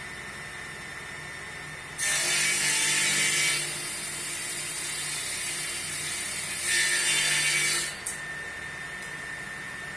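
Table saw running, ripping a long wooden board lengthwise against the fence. About two seconds in the blade bites into the wood and the sound jumps loud, eases somewhat mid-cut, rises again near the end of the board, then falls back to the saw's steady idle hum at about eight seconds.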